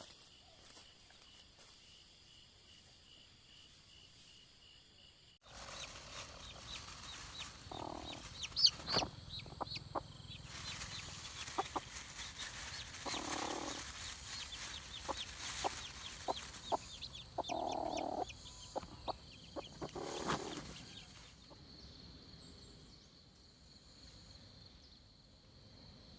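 Chickens clucking, with short calls every few seconds among scattered clicks and scratching. Only faint steady high tones come before it, until the sound changes suddenly about five seconds in.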